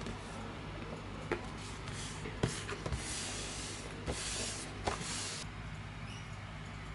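Paper notebook pages being handled: a few soft taps and clicks as fingers press the pages flat, and paper swishing and rustling as a hand sweeps across the sheets, over a steady low hum.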